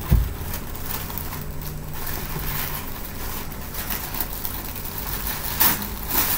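Tissue paper rustling as items are lifted out of a cardboard box, with a low thump just at the start and a louder rustle near the end.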